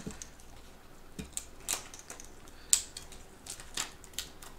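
Household scissors snipping through the clear plastic carrier sheet of cut glitter iron-on vinyl: a series of short, irregular snips.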